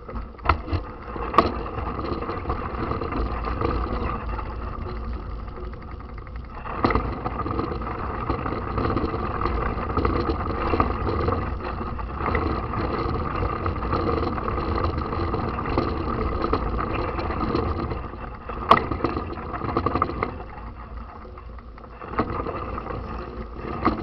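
Mountain bike rolling over a dirt track: steady tyre and rattle noise from the bike under a mounted camera, with a few sharp knocks over bumps, two in the first couple of seconds and a loud one near the end.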